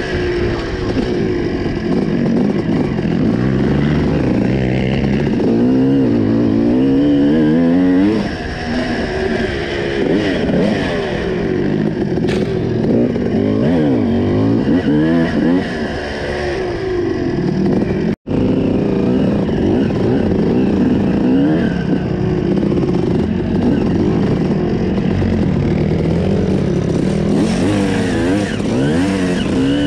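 Enduro dirt bike engine running close up under the rider, its revs rising and falling over and over as the throttle is worked along a rough trail. The sound cuts out for a split second about 18 seconds in.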